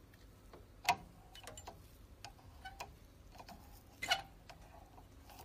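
Faint, irregular clicks and ticks of a foam cleaning swab scrubbing and tapping against a printer's plastic ink capping station as dried ink is cleaned off the cap pad, with two louder clicks, about a second in and about four seconds in.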